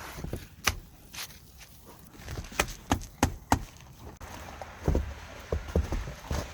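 Irregular sharp knocks and clicks, about half a dozen, then duller thuds over a steady hiss from about four seconds in.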